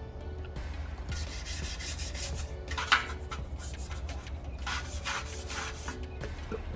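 Scrubbing rust off a bike's metal frame by hand, in runs of quick back-and-forth strokes with short pauses between them, and one sharp click about three seconds in.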